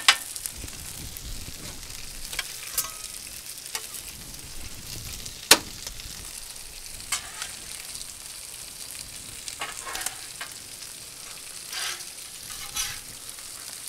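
Chicken breasts, bacon, mushrooms and onions sizzling in oil on a flat-top steel griddle, a steady hiss. A metal spatula clacks and scrapes on the griddle surface now and then, loudest about five and a half seconds in.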